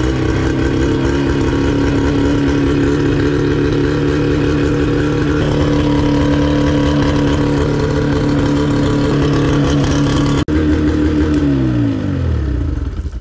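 Mercury 9.9 outboard motor running steadily at idle, then switched off near the end and winding down to a stop.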